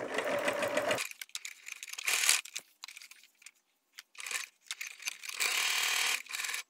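Sewing machine running a topstitch along a fabric edge for about a second, then stopping suddenly. Scattered small clicks and fabric rustling follow as the cloth is repositioned under the needle.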